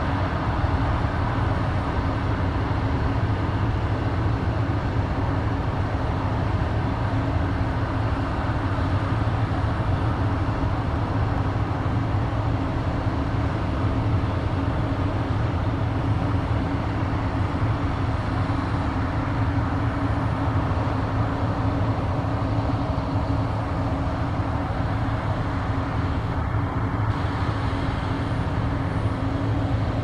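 Claas Lexion 560 combine harvester running steadily while harvesting grain: a constant engine hum with the noise of its cutting and threshing machinery, unchanging throughout.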